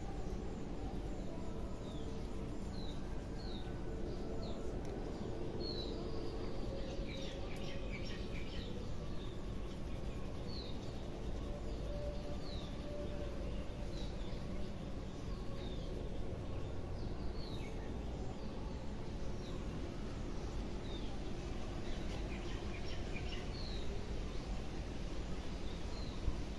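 Small birds chirping: many short, quick, falling chirps scattered through the whole stretch, over a steady low background noise.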